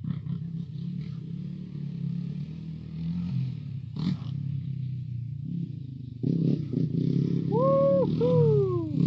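Quad bike (ATV) engine running steadily, louder from about six seconds in, with a pitched whine near the end that holds briefly and then falls in pitch.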